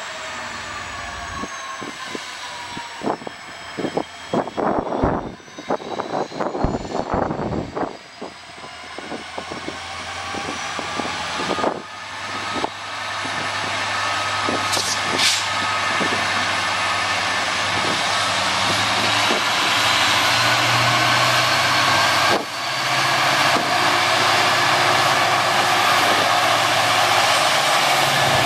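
Diesel locomotive GT561 approaching with a passenger train, its engine sound growing steadily louder as it nears. A whining tone shifts slowly in pitch, and a low engine drone strengthens toward the end. Some irregular thumps come about three to eight seconds in.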